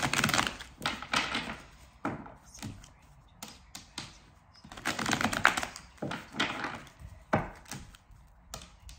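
A deck of tarot cards being shuffled by hand: stretches of papery rustling and riffling, with a sharp tap of the deck near the end.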